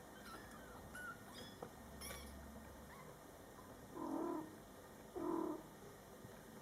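Cat and kittens meowing: faint, high kitten mews in the first couple of seconds, then two louder, lower meows about a second apart.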